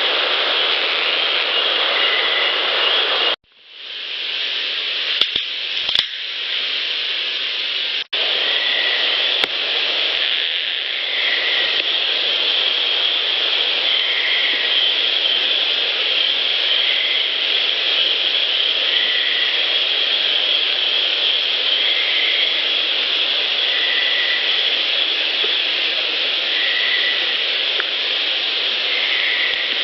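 Steady hiss of a field recorder set to high gain in woodland, broken by a few sharp cracks about five and six seconds in, which the uploader takes for a branch breaking. Faint short high notes repeat every two to three seconds.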